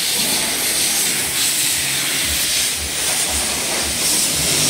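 Steady high hiss of a car-wash pressure washer spraying water, with soft low thuds about twice a second in the second half.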